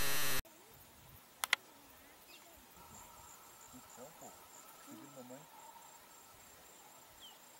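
A loud burst of music that cuts off sharply about half a second in, then quiet outdoor ambience with insects trilling steadily, one high pulsing trill and one lower even one. Two sharp clicks sound about a second and a half in.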